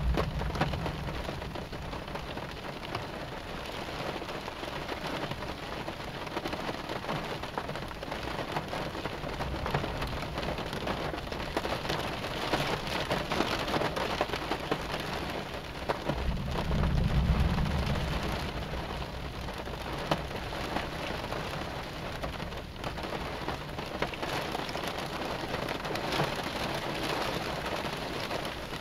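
Heavy rain falling steadily through a thunderstorm. A low thunder rumble swells and fades about two-thirds of the way through, and it is the loudest sound here; a smaller rumble comes right at the start.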